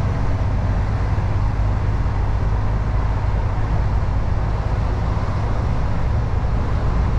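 Steady engine and road noise of a lorry on the move: a constant low rumble under an even hiss.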